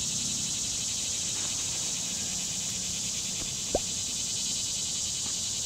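Steady, high-pitched drone of insects. A single short rising chirp comes about three and a half seconds in.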